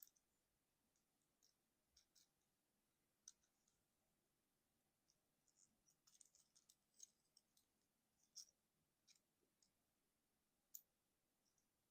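Faint, scattered clicks and light scrapes of the plastic joints and panels of a Transformers Studio Series 57 Offroad Bumblebee figure being moved by hand during transformation, with a quick run of clicks in the middle and one sharper click near the end.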